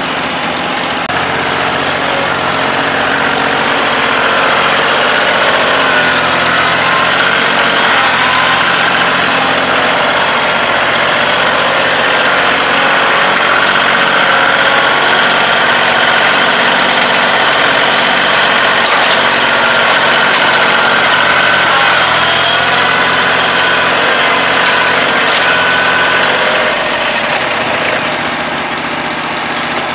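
Gasoline engine running steadily. It grows louder a few seconds in and eases back near the end.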